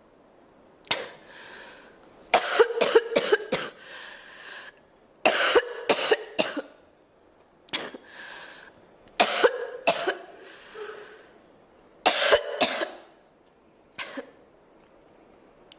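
A girl coughing in repeated fits: some single coughs, some rapid runs of three to five, with breaths drawn in between. A softer single cough comes near the end.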